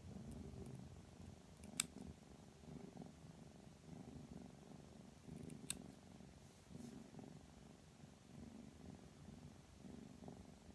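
Ragdoll kitten purring, a low rumble that swells about once a second. Two sharp clicks of small pet nail clippers cutting its claws come about two seconds in and again about six seconds in.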